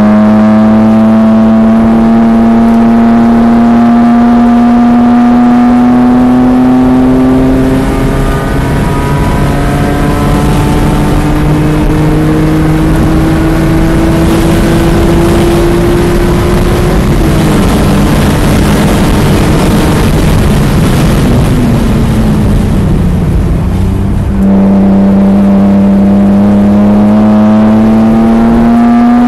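BMW E46 M3's S54 straight-six, heard from inside the cabin, at full throttle on track. The revs climb through a gear, drop at an upshift about 7 seconds in, and climb again to about 16 seconds. Then they fall away off the throttle for several quieter seconds before the engine pulls hard again near the end.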